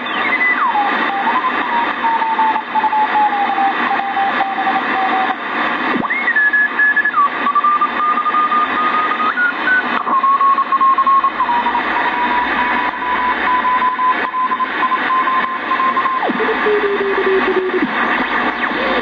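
KENTEC BCL-1 shortwave communications receiver sounding from its speaker as it is tuned: steady hiss and static with one whistling tone over it that shifts in pitch as the tuning moves. The tone falls at the start, jumps higher about six seconds in, settles to a middle pitch, then drops lower near the end.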